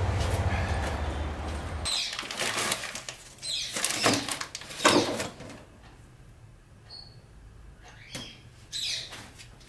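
A paper bag and plastic wrapping being handled, rustling and crinkling in several short bursts, the loudest about five seconds in. Before that, about two seconds of steady low hum.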